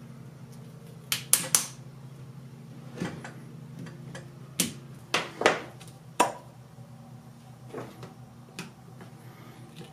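Irregular sharp clicks and clacks of tongue-and-groove pliers and plastic tubing as a clear vinyl hose is worked on a plastic fitting of a water filter housing. There is a quick cluster of knocks about a second in and another about five seconds in, over a steady low hum.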